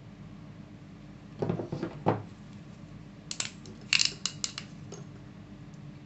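Metal crimping pliers handled on a tabletop: a couple of soft knocks, then a quick run of sharp metallic clicks and clinks from about three to five seconds in.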